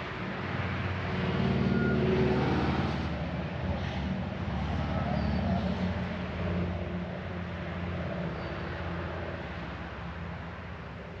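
A motor vehicle's engine hum, a steady low drone that swells over the first few seconds and then slowly fades.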